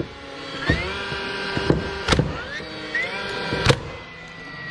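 DeWalt 20V brushless cordless nailer driving three nails into wood, about a second and a half apart. Each shot comes after a short rising whine as its motor spins up. After the last shot the whine holds and slowly falls away.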